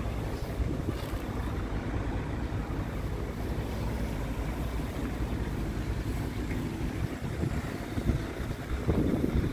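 Scania P tractor unit's diesel engine idling with a steady low rumble, wind buffeting the microphone. A brief louder rush comes near the end.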